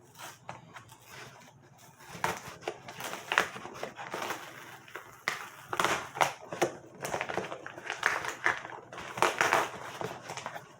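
Cardboard shipping package being handled and pried at by hand: irregular crunching and crinkling with scattered sharp clicks, starting about two seconds in.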